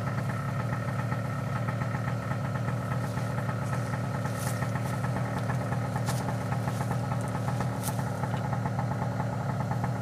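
Two-stroke paramotor engine idling steadily.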